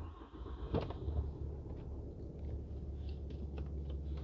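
6.7-liter Cummins diesel engine of a 2020 Ram 2500 starting right up and settling into a steady idle, heard from inside the cab.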